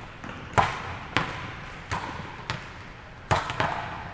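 Volleyballs being hit by hand and bouncing on a hardwood gym floor: about six sharp smacks at irregular intervals, each with an echoing tail.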